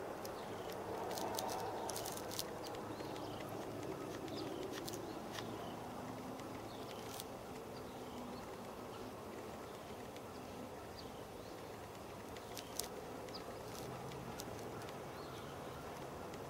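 Outdoor night ambience in a grassy field: a steady hiss with scattered sharp clicks and a few short, high chirps.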